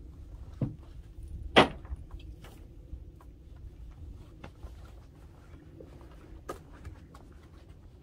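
A cast net thrown from a wooden pier: a sharp slap about a second and a half in, with a smaller knock just before it and a few light knocks and clicks after, over a low wind rumble.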